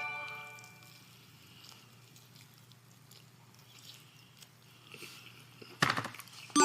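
The ringing tail of a stream alert chime dies away in the first second. A short crackle comes near the end, and then the same chime starts again.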